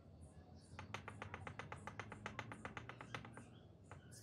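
Small green-handled hammer tapping lightly and rapidly on brick, about eight taps a second for a couple of seconds, settling a brick onto the wall.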